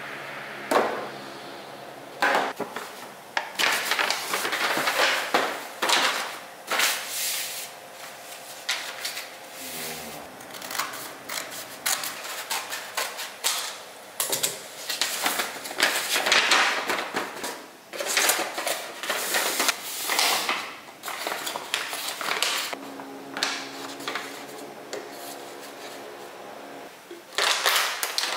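Close-up handling noise: small packets and boxes tapping and clattering against a plastic storage bin and a countertop, then a brown paper bag rustling and crinkling as it is folded into a box.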